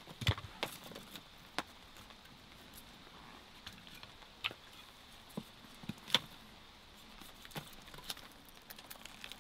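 Split wooden kindling sticks being laid into a fire pit: scattered light wooden clicks and knocks as the sticks are set down against one another, with louder knocks just after the start and about six seconds in.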